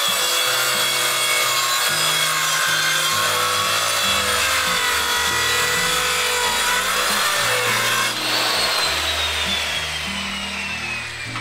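Corded circular saw cutting through a wooden board, its motor whining with the blade noise. About eight seconds in the trigger is released and the blade spins down, its whine falling steadily in pitch.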